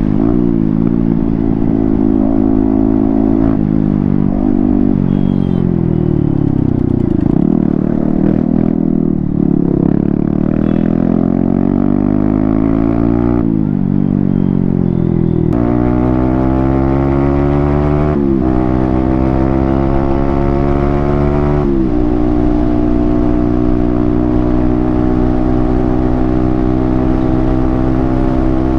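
Yamaha MT-15's 155 cc single-cylinder engine running with its original exhaust cut. The revs dip and climb again, then rise and drop sharply several times in the middle, and hold steady near the end.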